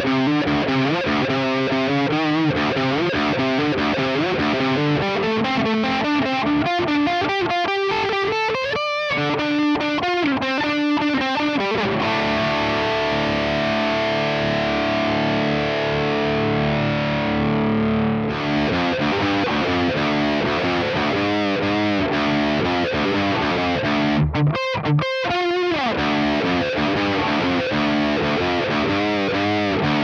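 Parker Fly Deluxe electric guitar with DiMarzio pickups through a distorted Diezel VH4 amp and Mesa 4x12 cabinet, played with fast single-note lines. About twelve seconds in, a few notes are held and ring out for several seconds, then the quick runs resume, with two short stops just before halfway through the second half.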